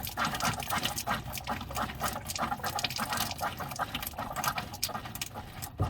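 Water running and spattering out of a travel-trailer sink faucet opened to bleed the pressure off the water lines, in rapid, irregular splashes.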